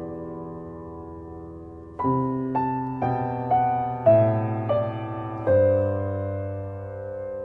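Background piano music: a held chord, then a new chord about two seconds in followed by a falling line of single notes, and another chord struck about five and a half seconds in and left to ring.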